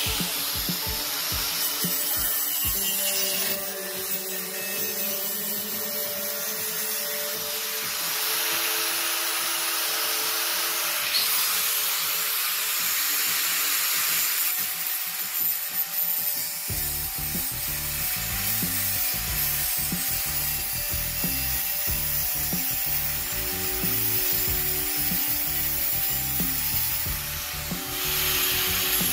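Angle grinder with a cut-off disc cutting thin stainless steel sheet, a steady grinding that changes character about halfway through.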